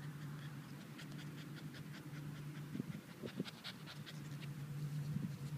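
Two-month-old Bernese Mountain Dog puppy panting, quick short breaths heard close up.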